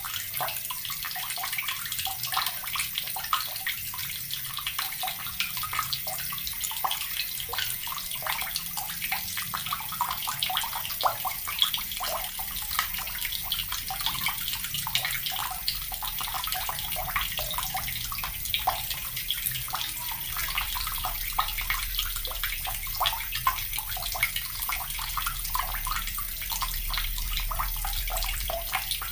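Water from a tap running into a bucket: a steady, busy splashing and trickling.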